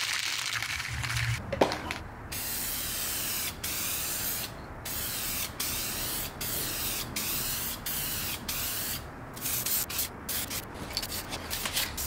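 An aerosol can of matte wheel clear coat spraying in hissing passes with short pauses between them, the passes getting shorter and quicker near the end. A sharp click comes just before the spraying starts.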